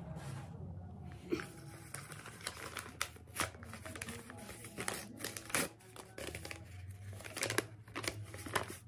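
Paper packet crinkling and rustling in the hands as it is turned over, unfolded and opened, in short irregular crackles.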